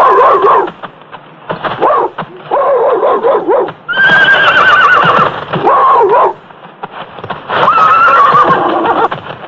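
Horses whinnying: a run of about six loud, wavering neighs one after another, with hooves clopping in the gaps.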